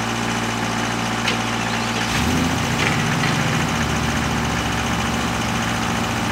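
Tree Farmer C-4 skidder's Ford 172 four-cylinder engine running steadily. About two seconds in its note changes, then holds at the new pitch.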